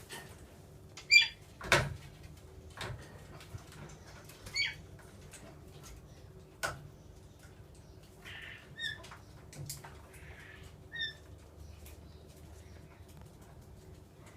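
Small pet parrots giving short single chirps every few seconds, with a few sharp clicks or knocks in between; the loudest knock comes just under two seconds in.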